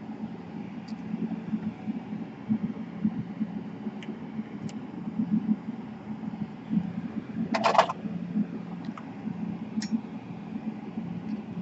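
Low, throbbing background hum throughout. Over it come a few faint ticks, a short rattle of small sharp clicks about two-thirds of the way in, and one more click shortly after, as small laptop parts are handled during reassembly.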